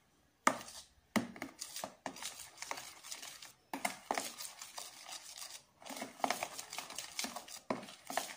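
Hand utensil stirring flour into a thick cake batter in a plastic bowl, making quick, irregular scraping and knocking strokes against the bowl with a few short pauses.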